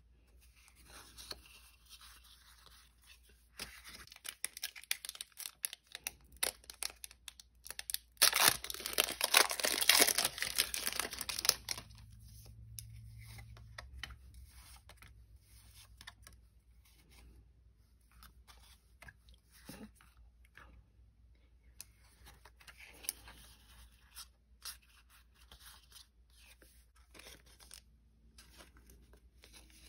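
Foil Pokémon booster pack wrapper being torn open and crinkled, loudest about eight to twelve seconds in, followed by quieter, scattered crinkling and rustling of the wrapper and cards.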